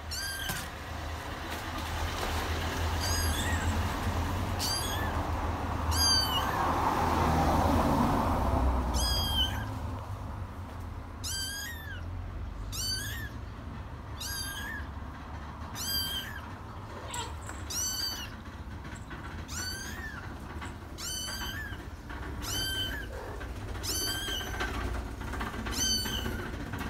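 Kittens mewing over and over in short, high-pitched cries, about one a second. Under them is a rushing background noise that swells over the first ten seconds, peaks near the eight-second mark, then fades.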